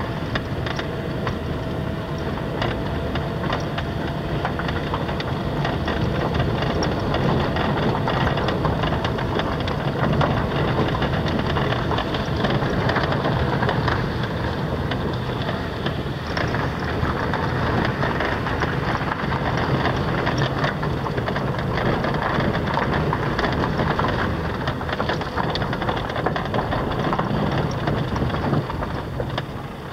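Car driving over a rough unpaved cinder track, heard from inside the cabin: steady tyre and road noise with a constant run of small knocks and rattles from the bumpy surface.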